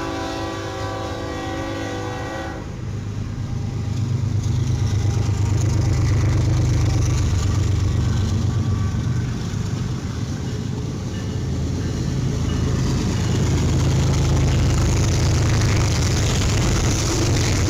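A locomotive horn sounding a chord of several steady notes, cutting off about two and a half seconds in. A train then passes close by with a steady low rumble of engine and wheels on rail that grows louder a few seconds later.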